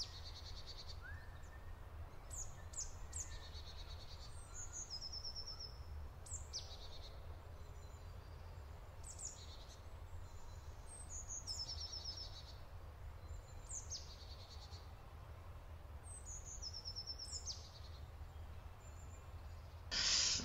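Birds chirping faintly: short high calls, quick downward sweeps and trills every second or two, over a steady low hum. A short burst of rustling noise comes at the very end.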